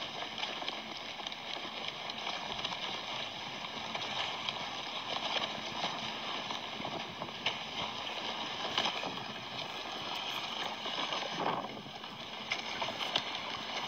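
A crowd of vultures fighting over a carcass: continuous noisy scuffling and wing flapping, with many sharp clicks and brief louder flare-ups of squabbling.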